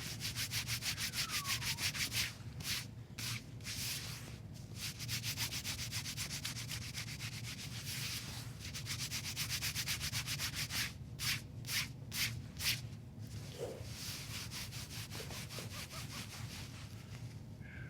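Hands rubbing briskly back and forth over a person's back, several strokes a second in runs with short pauses, then a few slower single strokes, as a chiropractor checks the spine by touch.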